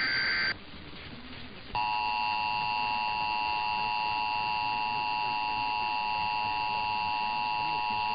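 The end of an EAS SAME digital header burst, a short warbling data screech, then a pause of about a second. Then the Emergency Alert System two-tone attention signal starts about two seconds in and holds steady at one pitch. This is the alert tone that announces an emergency alert message.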